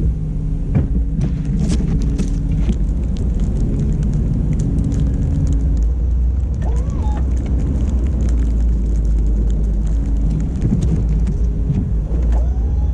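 Pickup truck running with a heavy, steady low rumble, with scattered clicks and rattles over it.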